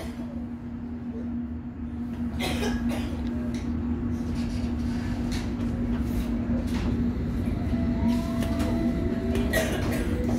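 London Underground District line train heard from inside the carriage: a steady rumble and hum with scattered clicks from the wheels and track. From about eight seconds in, a whine rises in pitch as the traction motors pull the train up to speed.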